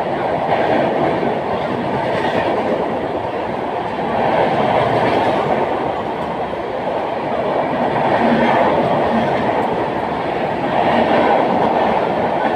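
Inside a non-AC Mumbai suburban local train while it runs: the steady noise of wheels on track and the carriage moving, swelling and easing a few times.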